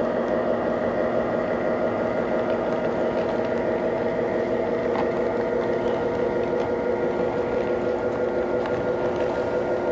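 MTH RailKing Aerotrain O-gauge model train running past at steady speed: a steady droning engine hum from its Proto-Sound 2 sound system over the rumble of its wheels and motor on the track.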